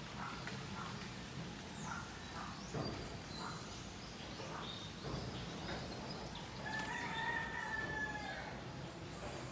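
Birds calling: scattered short chirps, and about seven seconds in one long, drawn-out call that sinks slightly in pitch at its end.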